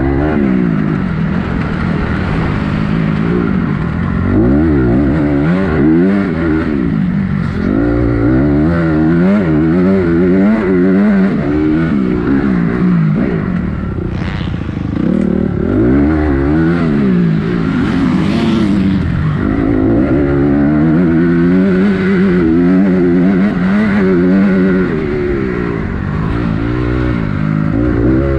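Motocross bike engine heard close up from on board, its revs climbing and dropping over and over as the rider accelerates and backs off round the track.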